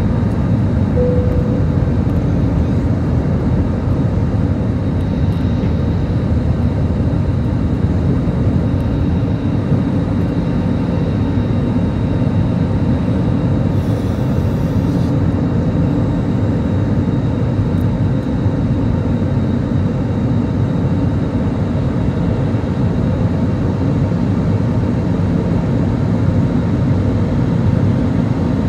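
Cabin noise of an Airbus A320-200 climbing just after takeoff: a steady, low drone of jet engines and airflow, heard from inside the cabin beside the engine.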